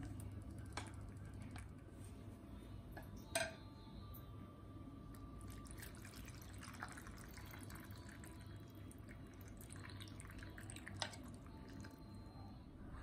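Soup broth pouring and dripping from a tipped steel pot into a ceramic bowl of chicken and vegetables, with a few sharp clinks, the loudest about three seconds in.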